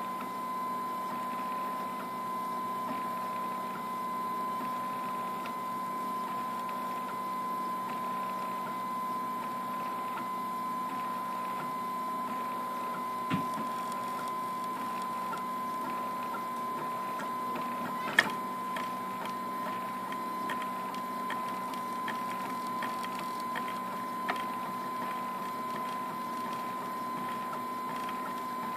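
RepRap 3D printer running a print, its stepper motors moving the hotend with a steady high whine. A few sharp clicks stand out, the loudest about two-thirds of the way through.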